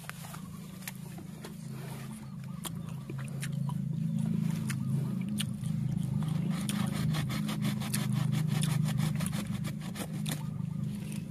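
A hand tool scrapes and clicks against soil and roots at the base of a tree as it is dug around. There are scattered ticks, then a fast run of clicks in the second half. A steady low engine-like hum runs underneath and is the loudest sound.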